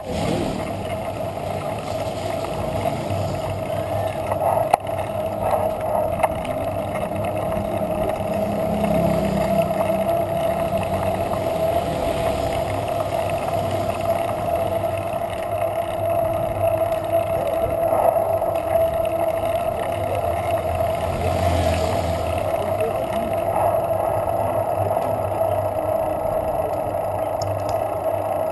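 Wind buffeting and road rumble on the microphone of a cyclist's action camera while riding a paved street, under a steady mid-pitched hum. Two sharp clicks about five and six seconds in.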